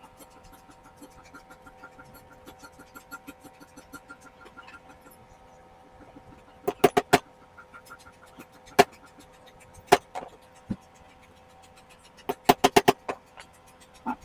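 Sharp taps of tools on a speedometer under hand repair, in short clusters: three quick taps, then single taps, then four in a row, over a steady hum. Before the taps there is a fast run of faint ticking.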